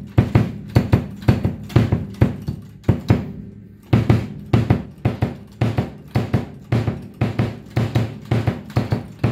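Bass drum kicked repeatedly with a foot pedal and its old beater, a test of the pedal before the beater is replaced. The kicks come about two to three a second, each ringing low, with a short pause about three seconds in.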